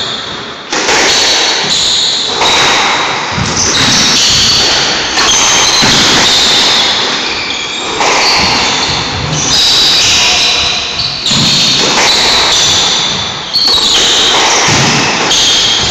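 Squash rally: the ball struck by rackets and hitting the court walls again and again, with shoes squeaking on the wooden floor.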